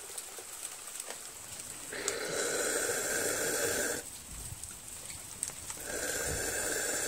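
Air blown hard into a push mower's gas tank to force the remaining gasoline out, in two long blows of about two seconds each.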